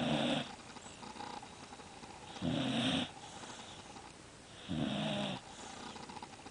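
A sleeping dog snoring: three loud rasping snores, each about half a second long, coming regularly about every two and a half seconds, with quieter breathing between them.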